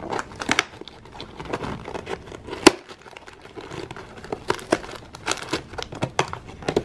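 Thin cardboard packaging panel being torn open by hand, with irregular crinkling and crackling and one sharp crack a little under three seconds in.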